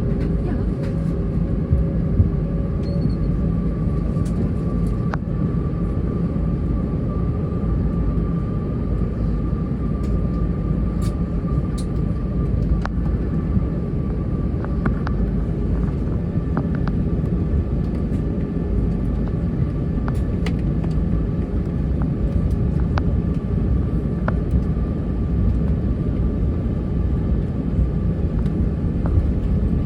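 Cabin noise of an Airbus A321 on the ground with its IAE V2500 turbofans at low power: a steady rumble with a constant hum and a thin steady whine, and now and then a light click or rattle.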